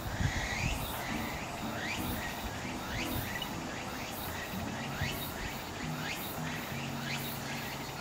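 Insects chirping in a steady repeating pattern, about two calls a second, with a faint low hum underneath.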